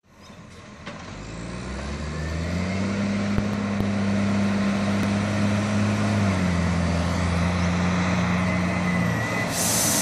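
Diesel engine of an Iveco garbage truck running as the truck approaches, growing louder over the first few seconds, its note dropping a little about six seconds in as it eases off. Near the end a loud steady hiss starts.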